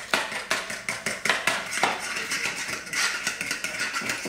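A fork beating an egg with salt in a plastic mixing bowl. It makes quick, rhythmic clicks and taps as the fork strikes the bowl, about three or four strokes a second.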